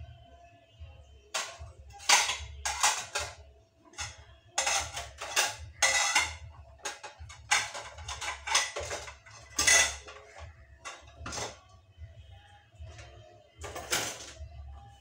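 Dishes and cutlery clinking and clattering in irregular bursts as they are handled while being dried with a cloth at a kitchen sink.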